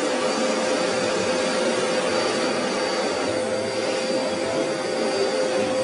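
Vacuum cleaner running steadily, a whooshing suction noise with a steady motor whine, as its hose sucks up long hair.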